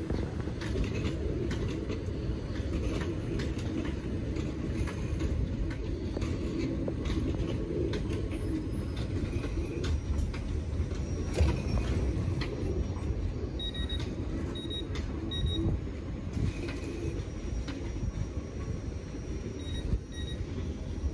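Southern electric multiple unit running slowly through the station tracks: a steady low rumble with scattered clicks of wheels over rail joints and points, and a louder clank about eleven seconds in. Short high electronic beeps sound three times about two-thirds of the way through and twice near the end.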